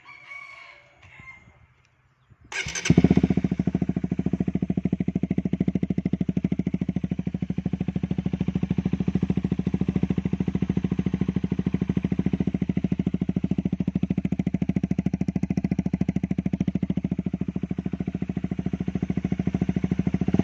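Honda CBR150R single-cylinder engine breathing through an aftermarket Akrapovic exhaust, firing up about two and a half seconds in and then idling steadily with an even, rapid pulse.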